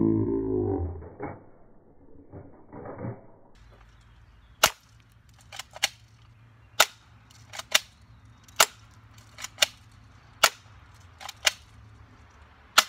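Spring airsoft Uzi firing single shots at clay pigeons: about a dozen sharp cracks from about three and a half seconds in, some coming in close pairs, as BBs hit and chip the clays. It opens with a loud warbling pitched sound lasting about a second.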